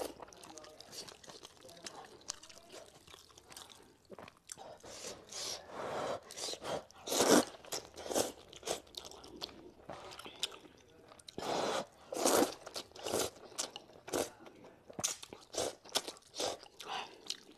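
A person slurping and chewing wide handmade wheat noodles in a series of short, irregular slurps with chewing in between.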